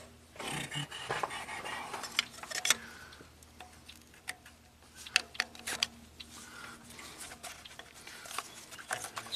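Irregular small clicks, taps and scrapes of a screwdriver and gloved hands working the exhaust camshaft oil control solenoid and its electrical connector loose from a Toyota 2.5 engine.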